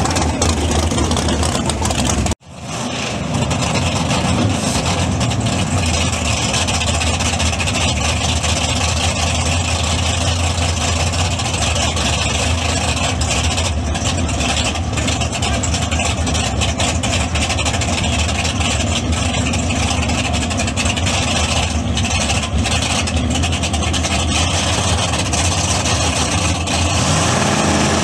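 Drag race car engine running loudly and steadily at the starting line, with a sudden break about two seconds in. Near the end the pitch starts to rise as the engine revs up.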